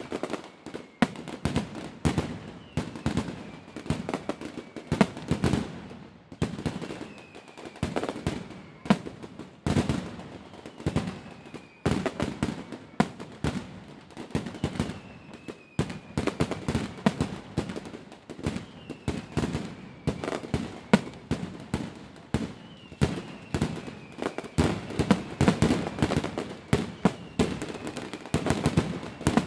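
Fireworks going off in rapid, continuous volleys of bangs and crackles, with a faint falling whistle every few seconds.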